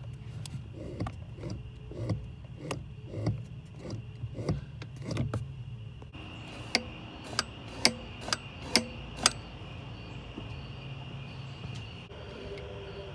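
Accelerator pedal and new throttle cable being worked by hand, giving irregular soft knocks about twice a second, then several sharp clicks around the middle. A faint steady high whine runs through the second half.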